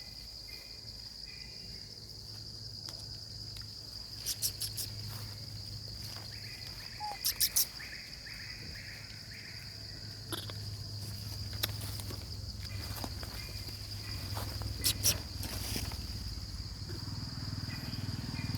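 Insects buzzing in one steady high-pitched drone, with a few short quick clusters of sharp clicks, about four seconds in, near the middle and again later.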